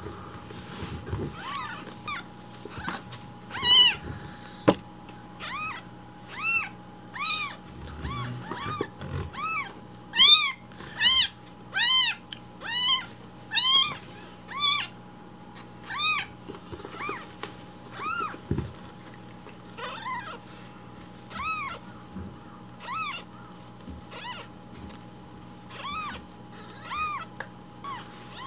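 Newborn tabby kitten meowing over and over, thin high-pitched cries that each rise and fall in pitch, about one a second, loudest around the middle.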